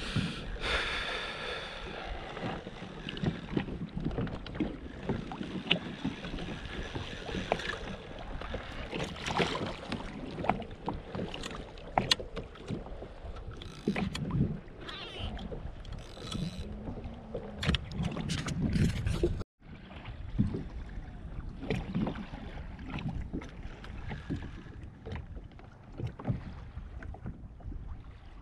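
Water sloshing and lapping against a fishing kayak's hull as it moves over choppy sea, with wind on the microphone and scattered knocks and clicks from the hull and gear. The sound cuts out suddenly for a moment about two-thirds of the way through.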